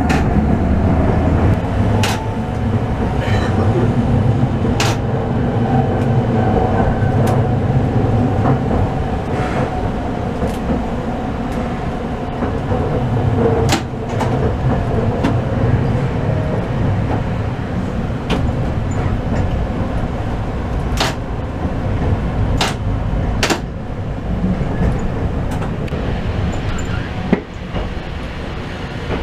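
Toden Arakawa Line streetcar running, heard from inside the cab: a steady low rumble of wheels and running gear under a faint motor hum, with sharp clicks at irregular intervals.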